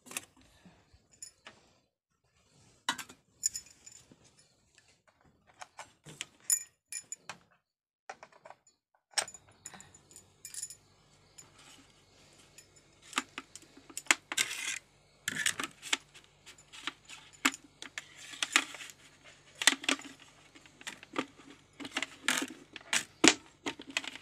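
Irregular clinking, jangling and knocking of metal kitchen utensils and pots being handled, in scattered sharp strikes that grow busier about nine seconds in. A faint steady low hum joins at the same point.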